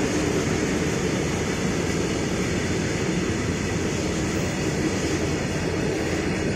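Freight train of open box wagons rolling past on the track: a steady, unbroken low rumble of wheels and wagons.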